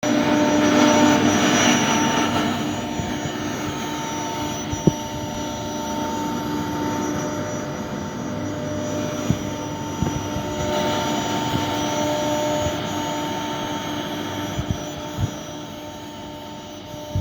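Single-head CNC nesting router running with a steady machine whine and hum, louder in the first couple of seconds, with a few short knocks along the way.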